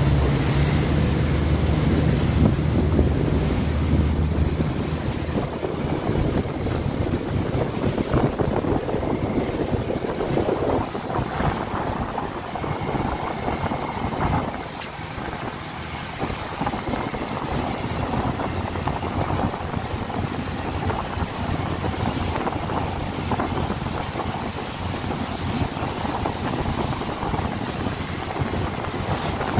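Outboard motor of a towing speedboat running at speed, with the wake rushing and wind buffeting the microphone. The engine's steady hum is clearest for the first few seconds, then mostly covered by wind and water noise.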